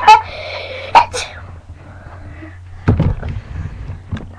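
A person sneezing: short, sharp sneezes, one about a second in and a louder one about three seconds in.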